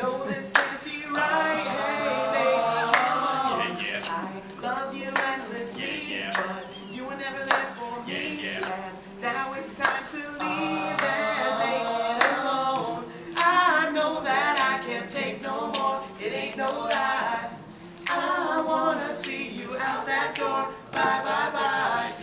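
A group of young male voices singing boy-band pop songs a cappella in harmony, with a sustained low vocal line underneath and scattered sharp percussive clicks.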